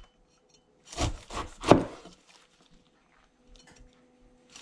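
A large cleaver-style kitchen knife sawing down through a whole pineapple's tough rind and fibrous flesh. Several crunching strokes come about a second in.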